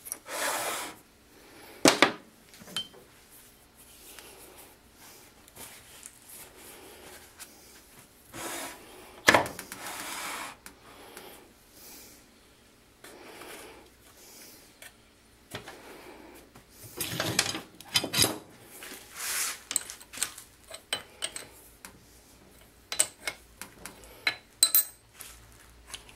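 Metal lathe tooling being handled with the machine stopped: scattered clanks and clicks, a few second-long scraping stretches, and sharp metal knocks about two and nine seconds in, as a drill chuck is set up at the tailstock to centre-drill a steel bar.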